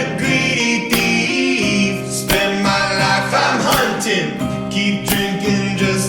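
Background song: male and choir vocals over guitar with a steady beat.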